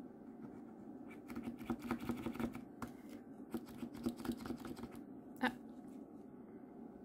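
Gold paint marker's tip being pressed down against paper on a tabletop to prime the ink: a run of light clicks and taps for about four seconds, the sharpest one near the end.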